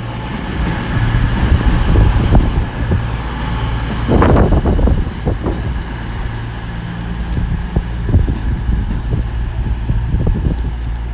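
Class 220 Voyager diesel multiple unit's underfloor diesel engines running with a steady low drone as the train stands at the platform. A louder rush of noise comes about four seconds in.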